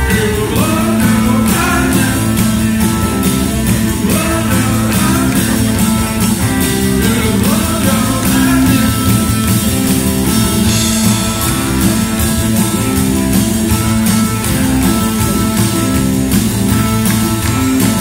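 Rock band playing live: a steady, driving groove with a repeating bass line under drums.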